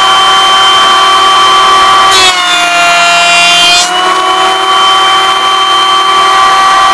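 Nu-Tool bench planer running with a loud steady whine, its pitch shifting about two seconds in and again about four seconds in, as a block of wood is pushed across the cutter.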